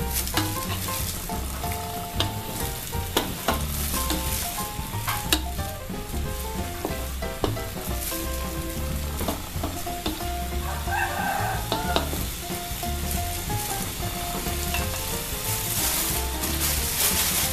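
Oyster mushrooms and shrimp sizzling in an aluminium wok while a black spatula stirs and turns them, scraping and knocking against the pan now and then. Soft background music plays underneath.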